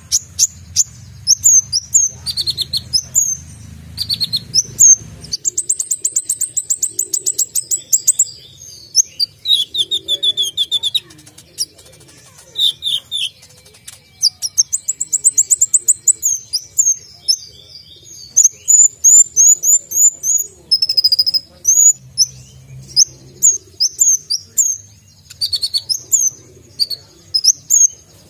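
Male Van Hasselt's sunbird (kolibri ninja) singing without pause. It is a dense stream of sharp, high-pitched chirps broken by fast rattling trills.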